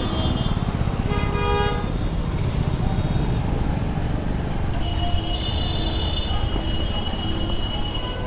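Honda scooter's electric horn giving one short toot about a second in, over a steady low rumble of engine and street noise. A high steady tone sounds for about three seconds in the second half.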